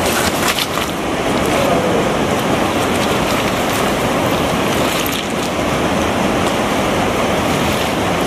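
Fast mountain river rushing over rocks and rapids: a steady, loud wash of water noise. A few clicks in the first second.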